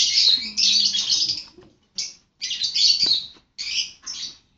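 Slime squelching and crackling with small air pops as fingers squeeze and dig through it, in three bursts of a second or so with short pauses between.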